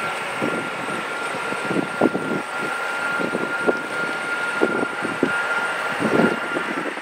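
Boeing 757-200 on landing approach, its Rolls-Royce RB211 turbofans running with a steady whine over a broad jet roar, with irregular low rumbling underneath.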